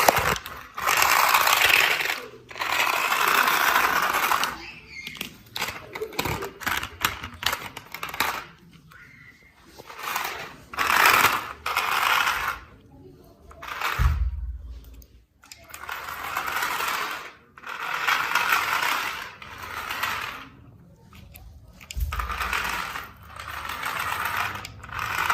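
Battery-operated toy remote-control stunt car's small electric motors whirring in repeated bursts of one to two seconds as it drives across the floor, stopping and starting with each press of the remote's buttons. Two low thuds come midway and near the end.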